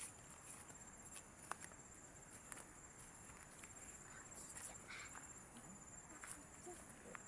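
Faint insects trilling: a steady high-pitched drone with a higher chirp pulsing about twice a second, and a few scattered light clicks.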